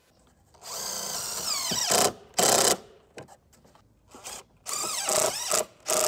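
Cordless drill driving screws into a wooden board in several short runs. The first run lasts over a second and its pitch drops as it slows; shorter bursts follow.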